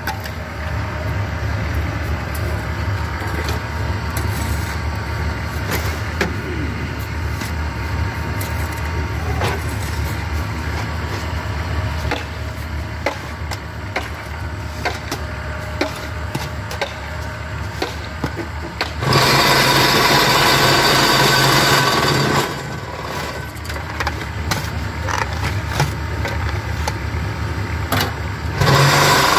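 Concrete hollow-block machine: a motor running steadily under scrapes and knocks of a steel rake spreading concrete mix over the mould. About 19 seconds in, the machine's mould vibrator starts with a much louder vibrating run for about three seconds, and it starts again near the end.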